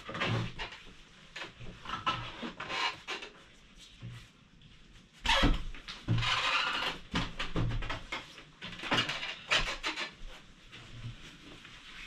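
A round wooden chabudai (low table) being handled and carried across tatami: scattered wooden knocks and clatter with rubbing and scraping, and a louder knock about five seconds in followed by a second or so of scraping.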